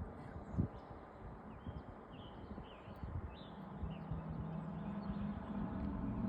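Wind rumbling and buffeting on the microphone, with a few short bird chirps in the middle and a low steady hum setting in partway through.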